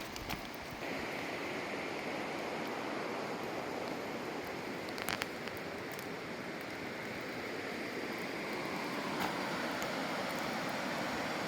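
Rushing water running steadily, rising about a second in, with a few faint clicks over it.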